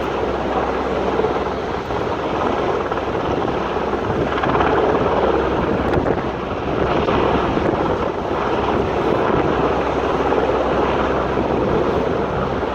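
Helicopter running steadily overhead, mixed with strong wind buffeting the microphone and surf.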